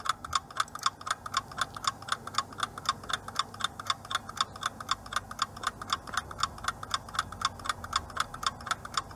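Clock-ticking sound effect of a countdown timer, fast, even ticking.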